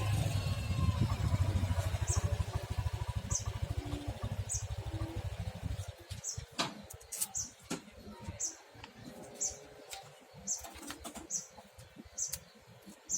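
Short high-pitched chirps repeated about once a second, typical of a small bird. Under them a low rattling buzz runs for the first half and stops about six seconds in, followed by scattered clicks and taps.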